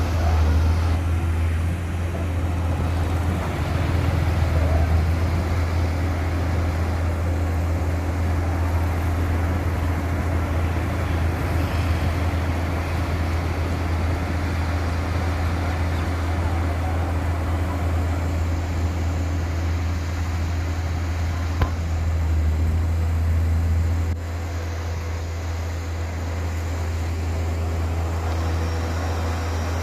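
Heavy diesel engine of a rotary drilling rig running steadily with a deep, constant hum, with a single sharp knock about two thirds of the way through. The noise eases slightly soon after.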